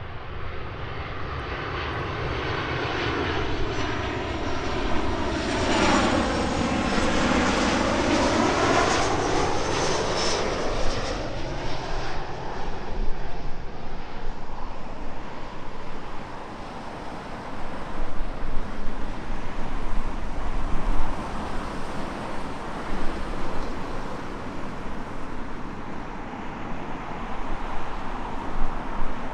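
Jet airliner on landing approach passing overhead: the engine noise swells to its loudest about six to ten seconds in with a sweeping, whooshing change in tone, then fades to a low rumble.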